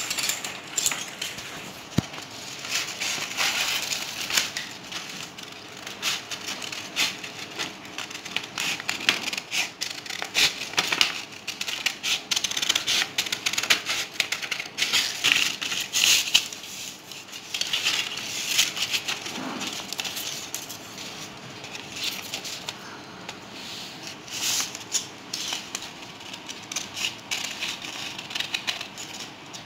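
Metal scissors cutting black chart paper, with irregular runs of snips, and the sheet rustling and crinkling as it is turned and handled.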